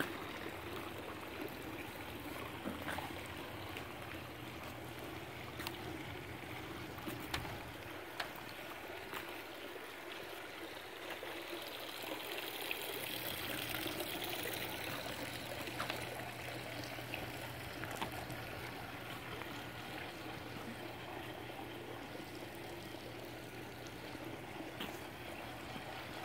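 Swimming pool water trickling steadily, with a few faint clicks. A low steady hum comes in about halfway through.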